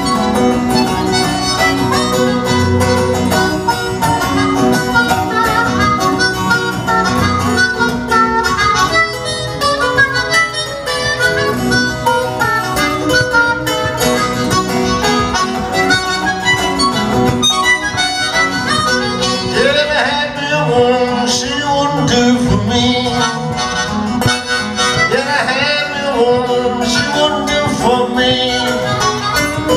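Harmonica playing a lead line over acoustic guitar accompaniment in a live blues duo. The harmonica bends notes up and down, more so in the second half.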